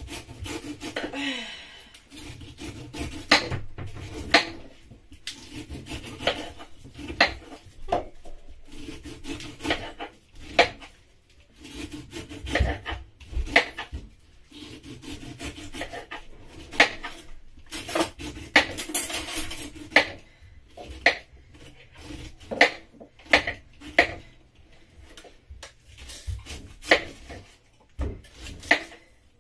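Kitchen knife cutting the rind off a whole pineapple on a wooden chopping board: rasping cuts through the tough skin, with many sharp knocks of the blade on the board.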